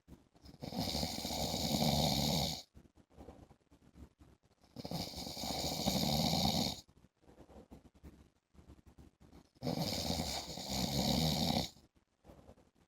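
A man snoring regularly in his sleep. There are three long snores, each about two seconds, one every four to five seconds.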